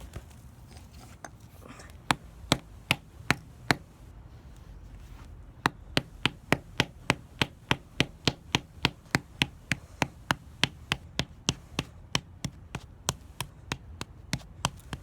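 A rusty hammer repeatedly smashing a bar of soap. There are five quick blows about two seconds in, a short pause, then steady pounding at two to three blows a second that grows slightly weaker near the end.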